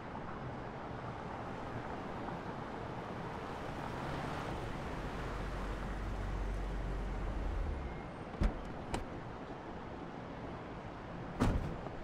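A car pulls up over steady city traffic noise, its low engine rumble stopping about eight seconds in. Two sharp clicks follow, about half a second apart, then a heavier car door thud near the end.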